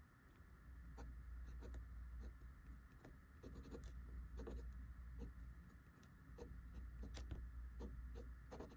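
Fountain pen with a steel Schmidt nib writing on thin Tomoe River paper: faint, quick scratchy nib strokes with short pauses between them.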